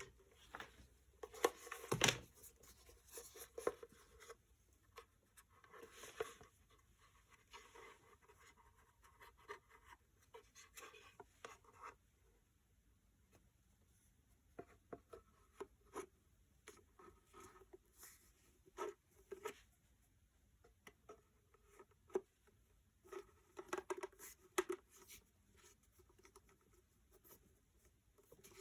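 Faint, scattered handling noises: small clicks, taps and brief rustling of objects being moved about, with a sharper knock about two seconds in. No motor is running.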